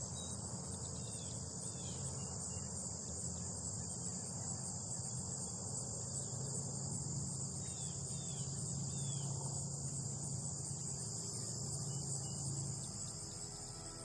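Steady high-pitched insect chorus of summer outdoor ambience, with a few short bird chirps and a low hum underneath.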